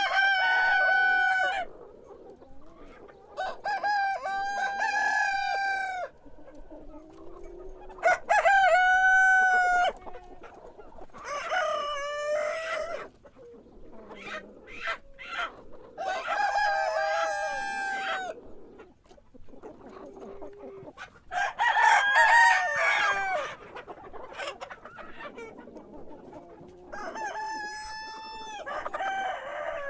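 Rooster crowing over and over: about seven full cock-a-doodle-doo crows, each lasting about two seconds, spaced a few seconds apart.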